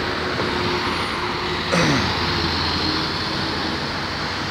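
Road traffic with a single-decker bus driving past, its engine running steadily. About two seconds in, a passing vehicle's engine note drops in pitch.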